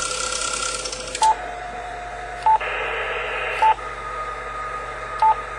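Yaesu FT-450 transceiver's front-panel beeps: four short, equal beeps about a second apart as its keys are pressed to change from the 12 m to the 10 m band and tune, over the receiver's hiss of band noise, which drops off about a second in.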